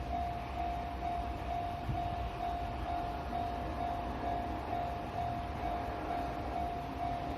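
Japanese railway level-crossing warning bell ringing, one electronic ding repeating evenly a little over twice a second, over a low rumble.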